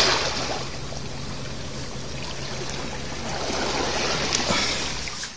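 Shallow sea water washing and trickling over rocks and sand at the water's edge, a steady rush that swells slightly near the end.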